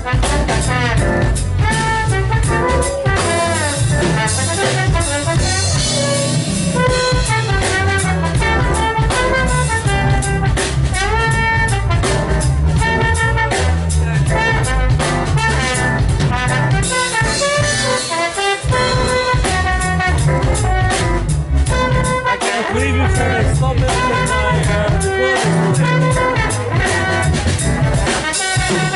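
Live jazz band playing, with a trombone carrying the lead line over a drum kit and keyboard.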